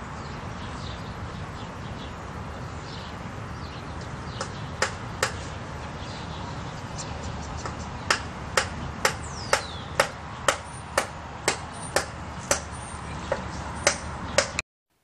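Sharp clicks over a steady background hiss. The clicks are scattered at first, then come about two a second from about halfway on, and the sound cuts off suddenly near the end.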